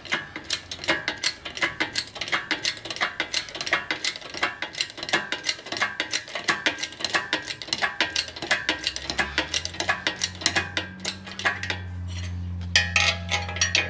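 Rapid, irregular metallic clicking and clinking, several clicks a second, from the engine hoist and engine stand hardware as an engine is set onto the stand. A low steady hum comes in about ten seconds in.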